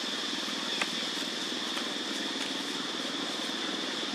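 Steady droning background noise, a high whine over a low pulsing hum, with one sharp click just under a second in.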